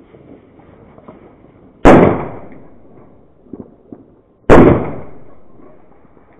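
Two loud firecracker bangs about two and a half seconds apart, each followed by a long echoing tail, with a few faint pops between them.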